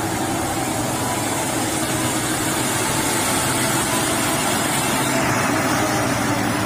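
Mitsubishi Fuso tanker truck's diesel engine running steadily as the truck drives slowly forward.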